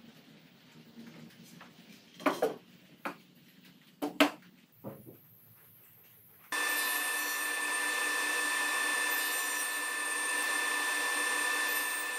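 A few sharp knocks of wood being handled, then, about six and a half seconds in, a Powermatic table saw comes in suddenly and runs steadily with a high whine and hiss while cutting a notch in a wooden rail.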